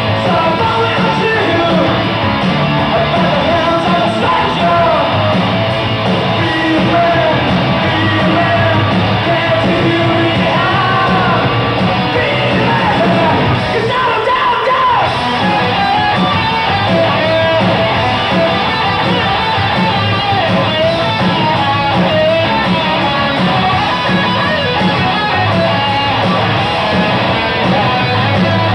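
Live punk rock band playing at full volume: distorted electric guitars and pounding drums under shouted, sung vocals.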